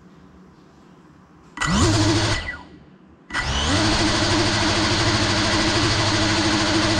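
GEPRC CineLog35 cinewhoop's brushless motors and ducted propellers: a brief spin-up that winds down again, then about three seconds in the motors start once more and run with a steady buzz at idle before take-off.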